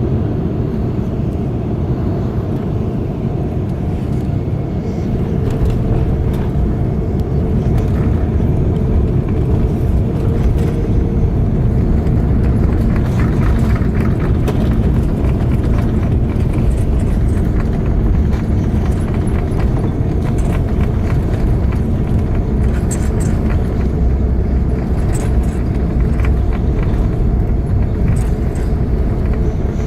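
Cabin noise on the upper deck of a British Airways Airbus A380 landing: a loud, steady low rumble of engines and airflow. From about eight seconds in, many short rattling clicks and knocks from the cabin come in over it.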